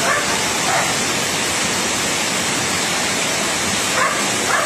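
Steady rushing of fast-flowing muddy floodwater. A dog barks a few times, twice near the start and twice near the end.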